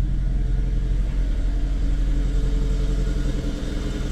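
Supercharged Honda S2000 four-cylinder engine idling steadily, heard from inside the cabin.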